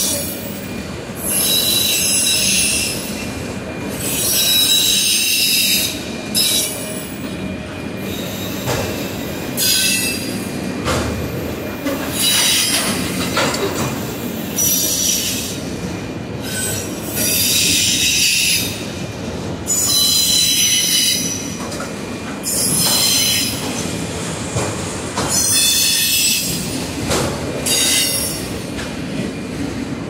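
Union Pacific intermodal and auto-rack freight cars rolling past. A steady rumble of wheels on rail is broken by about a dozen high-pitched wheel squeals, each lasting up to a couple of seconds.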